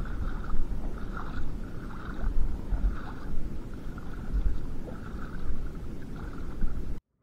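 Wind buffeting the microphone, a heavy uneven rumble with gusty peaks, over a noisy wash; it cuts off suddenly near the end.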